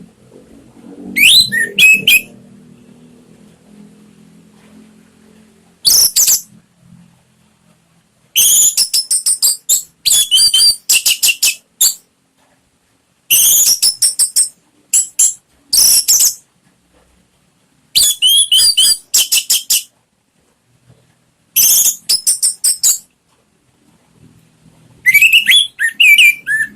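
Orange-headed thrush singing in loud, full bursts of rapid, high-pitched phrases with gliding whistled notes, about seven phrases separated by pauses of one to two seconds. This is the open, full-voiced song used as a lure to prompt captive birds of the species to sing.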